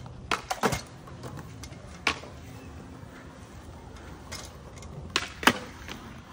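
Skateboard clacks on concrete: a few scattered sharp snaps and landings, the loudest pair coming about five seconds in as a skater pops his board up onto a concrete manual pad.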